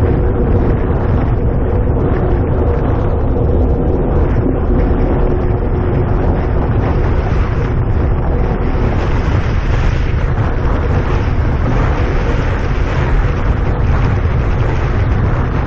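Wind rushing over the microphone of a camera riding along a paved road, a loud, steady rumble, with a faint hum under it for the first several seconds.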